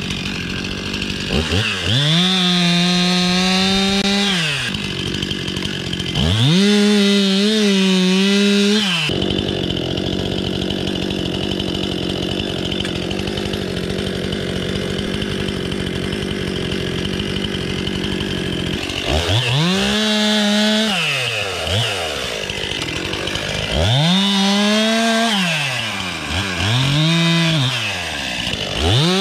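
STIHL MS 261 two-stroke chainsaw opened up to full throttle in five bursts of a few seconds each, every burst climbing to a high screaming pitch and falling back. Between the second and third bursts the saw runs at idle for about ten seconds.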